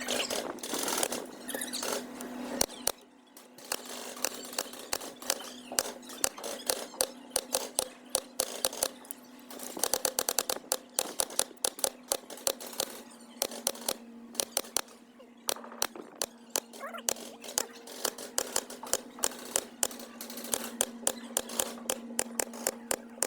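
Rattan being worked by hand for a repair: a long run of sharp clicks and crackles, coming in quick clusters, over a steady low hum.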